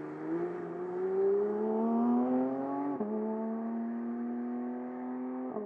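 Porsche 911 GT3 Touring (992) naturally aspirated 4.0-litre flat-six accelerating: the engine note climbs for about three seconds, drops sharply at an upshift, then pulls on nearly level with a second brief dip near the end.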